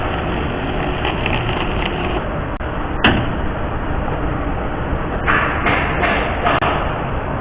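MIG welder arc running steadily as a bead is laid with the newly fitted wire, with a sharp click about three seconds in and several brief louder bursts near the end.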